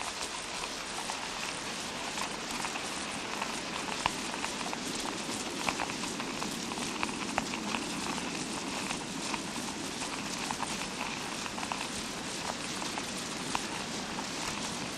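Fake rain sound effect: a steady hiss of many small drops, with scattered sharper ticks throughout.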